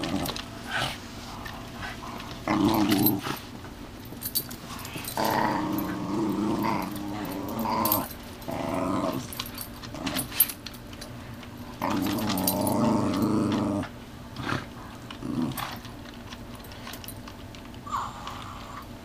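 Small dogs play-growling in repeated bursts while tugging a plush toy between them, the longest growls about five seconds in and again about twelve seconds in, with scuffling between.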